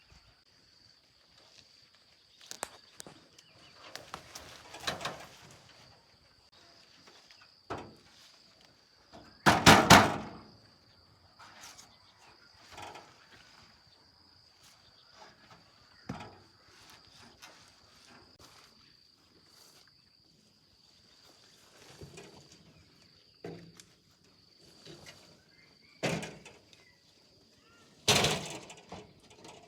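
Scattered knocks, thuds and scraping, one loud clatter about ten seconds in and two more near the end, over a steady high-pitched insect drone.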